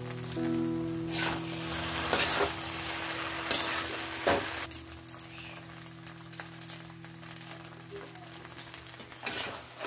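Pasta sizzling in a frying pan as a spatula stirs and scrapes through it, with several scraping strokes in the first half, after which the sizzle goes quieter. Faint steady music tones sit underneath.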